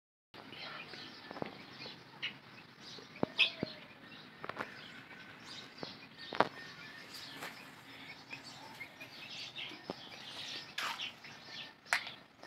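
Birds chirping in short, scattered calls, with a few sharp clicks or taps among them.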